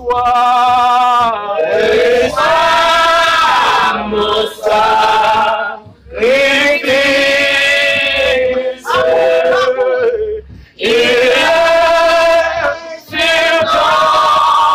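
Voices singing a slow worship song together, with long held notes that waver in pitch, in phrases of one to three seconds with short breaks between.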